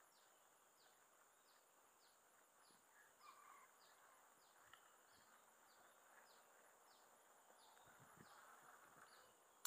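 Near silence: faint outdoor ambience with insects, a short high chirp repeating about twice a second over a steady thin high-pitched drone.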